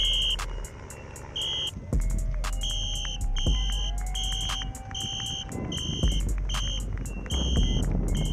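Electronic background music: a high, beeping synth note pulses about every half second over a steady beat and deep bass.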